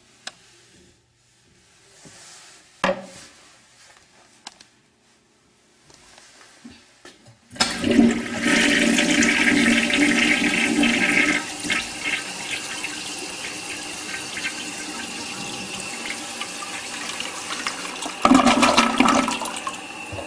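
Vintage Kohler toilet being flushed: after a few sharp clicks, the rush of water starts suddenly about seven and a half seconds in and runs on steadily as the bowl swirls, growing louder again for about a second near the end.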